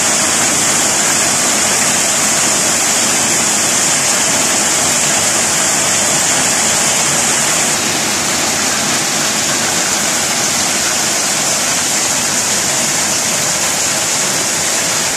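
Heavy rain pouring down on a garden, trees and bare ground: a loud, steady hiss.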